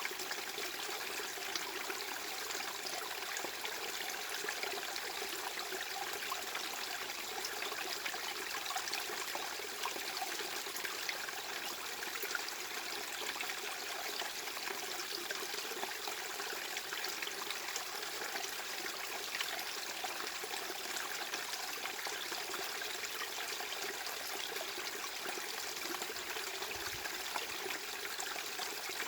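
Steady, unbroken rushing noise like a trickling stream, with fine crackle and little low rumble, played as a tinnitus-masking sound.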